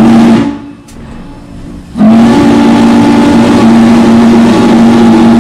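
Norfolk & Western 611's Hancock long-bell chime steam whistle: a brief toot right at the start, then a long steady blast from about two seconds in, each sounding as a chord of several tones. These are the closing short and long of the two-long, short, long grade-crossing signal.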